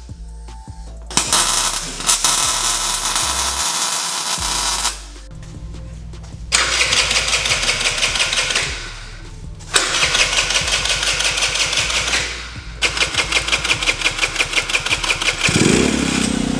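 Welding an exhaust pipe: four bursts of crackling arc noise, each a few seconds long with short pauses between, the last one pulsing rapidly, over background music with a steady bass line. About a second before the end, the 50cc scooter engine starts and runs at a steady idle.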